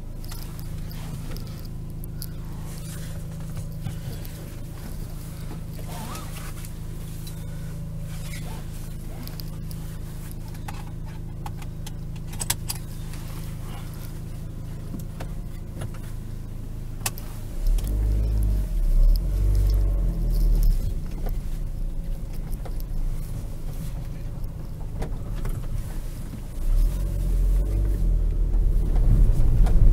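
Opel Vivaro's 1.9 CDTI four-cylinder turbodiesel heard from inside the cab, idling steadily at first, with a few clicks. About 17 seconds in the engine grows much louder with a deep rumble as the van pulls away, and louder again near the end as it accelerates.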